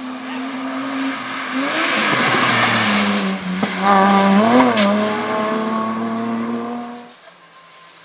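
Historic BMW 3 Series rally car engine at high revs. The pitch drops as the car slows for a tight junction, with a sharp crack in the middle, and a brief rise in revs as it is driven hard through the corner. The engine note cuts off about seven seconds in.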